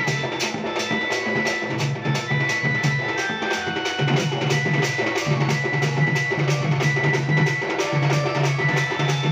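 Folk drum ensemble of dhol-type barrel drums playing a fast, steady beat, about three strikes a second, accompanying a danda nritya dance, with a high sustained tone coming and going over it.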